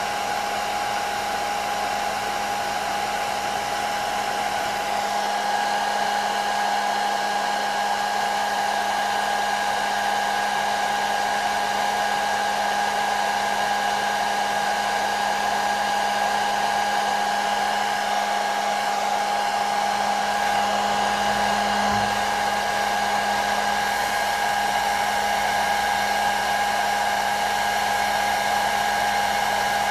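Hair dryer running steadily: an even rush of blown air with a constant motor whine and a low hum underneath, unchanging throughout.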